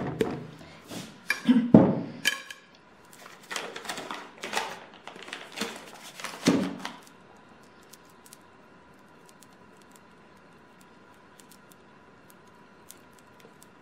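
Irregular handling noises from hands rubbing seasoning onto a raw chicken: clicks, rustles and the jingle of a charm bracelet, with two heavier thumps, one about two seconds in and one about six and a half seconds in. Then it goes quiet apart from room tone with a faint steady hum.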